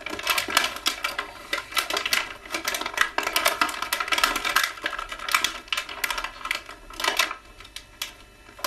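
Rapid, irregular clicking and rattling of a plastic toy package being handled as an action figure is worked free of its tray.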